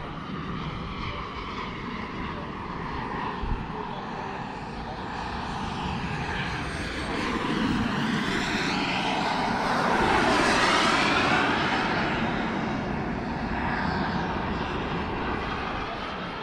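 Radio-controlled model F-16 jet making a low pass: a jet rush and whine that builds, is loudest about ten seconds in as it passes, drops in pitch, then fades as it climbs away.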